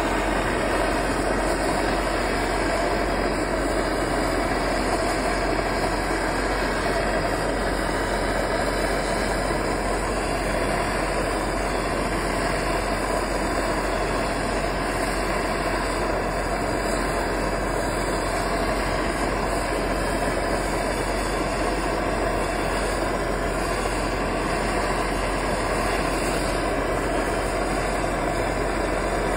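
Hand-held gas torch burning with a steady rushing hiss as its blue flame heats the pipe of a DIY used-oil heater, warming the cold oil burner so it will light properly.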